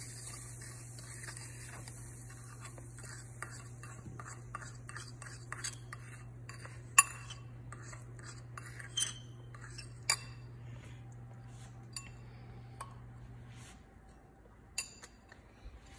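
A metal spoon stirring and scraping a baking soda and vinegar mixture around a ceramic bowl, with steady small scrapes and ticks and a few sharper clinks of the spoon against the bowl.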